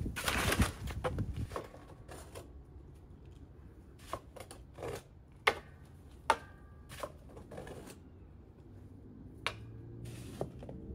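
Irregular clicks and knocks: a short rustling burst at the start, then a scattered run of sharp clicks over a low steady background.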